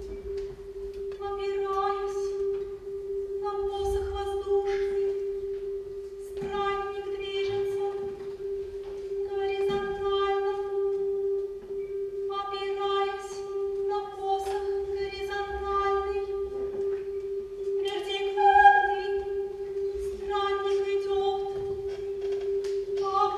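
Contemporary chamber music for female voice and mallet-percussion ensemble. A single held tone sounds throughout, and short phrases of the same pitch enter over it every two to three seconds, with one louder accent about three-quarters of the way through.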